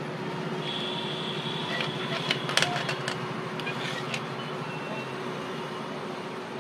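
Hot-air rework station blowing steadily on a circuit board to heat a chip for desoldering, a constant airy hum with a faint high whistle for a couple of seconds, and a few sharp clicks of tools on the board in the middle.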